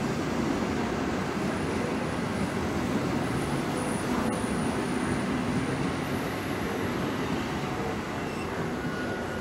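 PKP Intercity passenger coaches rolling past along the platform: a steady rumble of wheels on rail, with a thin high whine in the middle, easing slightly as the last coach goes by near the end.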